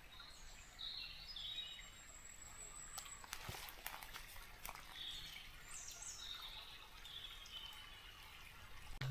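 Songbirds calling and singing faintly, with short high chirps and whistles throughout, and a few sharp clicks about three seconds in.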